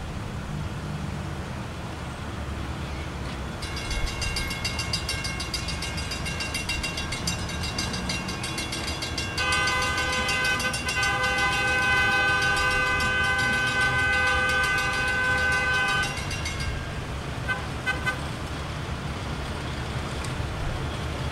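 Grade-crossing bell starts ringing about four seconds in as track maintenance machines approach. About halfway through, one of the machines sounds a long horn blast of about six seconds over the bell, and both stop together. A low engine rumble runs underneath.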